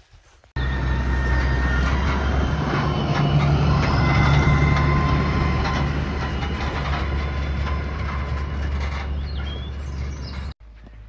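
A vehicle running steadily: a low engine hum under a loud rushing noise. It starts suddenly about half a second in and stops abruptly near the end.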